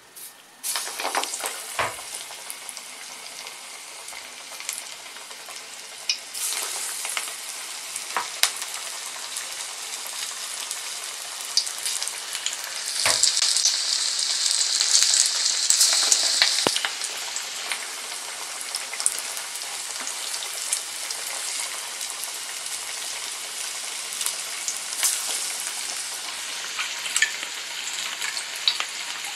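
Pattani paruppu masala vadas (split-pea fritters) deep-frying in hot oil in a metal kadai: the sizzle starts suddenly about a second in, grows louder in steps and is loudest for a few seconds around the middle, with scattered pops and crackles from the oil.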